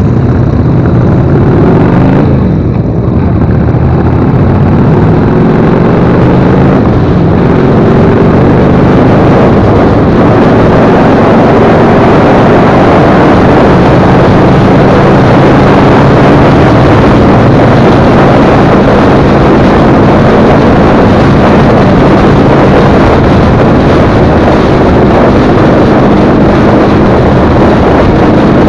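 Cruiser motorcycle engine running at road speed, rising in pitch while picking up speed in the first few seconds, with a short dip as if shifting gear, then holding steady, under heavy wind rush on the microphone.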